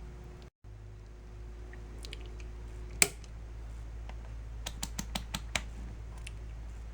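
A steady low hum with light clicks over it: one sharp click about three seconds in, then a quick run of about six clicks a second and a half later, the sort heard from keys or small hard objects being handled.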